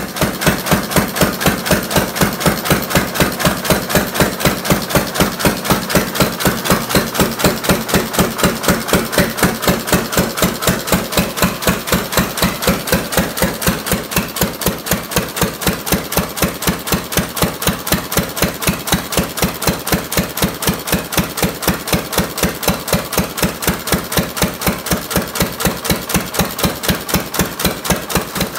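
1-1/2 HP Field & Brundage throttle-governed single-cylinder gas engine running on its magneto, with a rapid, even train of sharp exhaust beats. It is running faster than the owner wants, not yet slowed down or fine-tuned.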